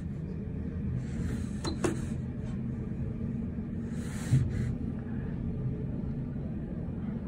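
Otis lift car travelling, a steady low hum and rumble heard inside the cabin. There are a couple of sharp clicks just before two seconds in and a single thump about four seconds in.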